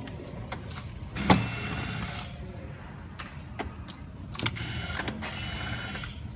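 Sharp plastic clicks and rustling from hands unplugging small wire connectors and handling the plastic chassis of an opened robot vacuum. The loudest click comes about a second in.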